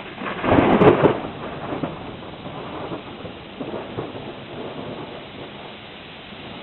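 Thunder: a loud, sharp crackling clap about half a second in, then rolling rumbles that fade over the next few seconds.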